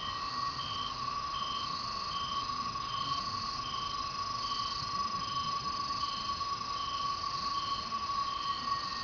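A night insect chorus. Cicadas keep up a steady, high-pitched humming, and over it a higher chirp repeats evenly, about once every 0.7 seconds.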